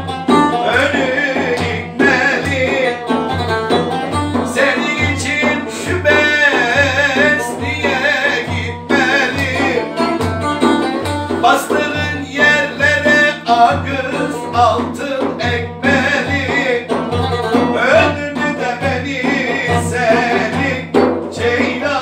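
A man singing a Turkish folk song with a wavering, ornamented melody, accompanied by a long-necked plucked lute and a steady low beat about twice a second.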